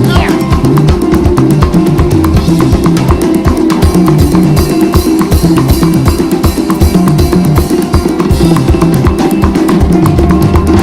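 Loud live band music with a fast, steady beat on drum kit and a busy bass line.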